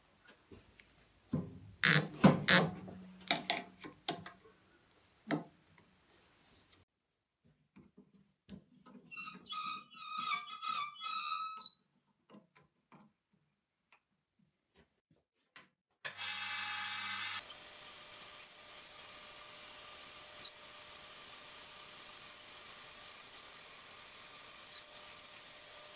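A wooden log blank knocked and shifted on a bandsaw table, with a few short squeaky sounds after it. About two-thirds in, the bandsaw starts and runs steadily as the blank is fed through the blade.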